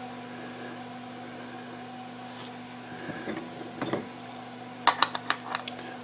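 Small metal hardware, a bolt and bracket, being handled and fitted onto a wooden board: soft handling noise, then about a second before the end a quick run of sharp metallic clicks and clinks, over a steady low hum.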